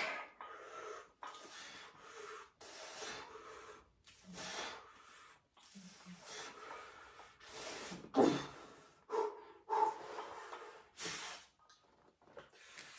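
A man breathing hard through a set of lying barbell triceps extensions: a run of short, forceful breaths, roughly one a second, with a louder one about eight seconds in.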